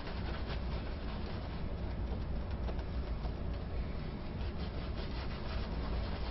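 Shaving brush working a thin soap lather with added water, a bristly scrubbing in repeated strokes over a steady low hum.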